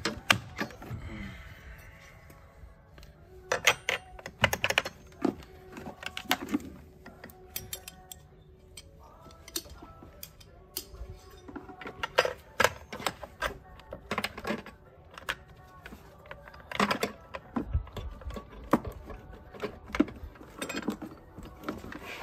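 Scattered clicks, taps and knocks of plastic and metal parts as a lithium-ion battery is seated in its tray and its hold-down and terminal hardware are fitted by hand. The sounds come in short clusters with quiet gaps between them.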